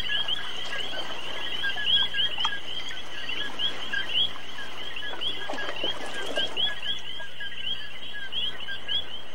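A dense evening chorus of small calling animals: many rapid, short, high chirps overlapping, several a second, over a faint wash of background noise.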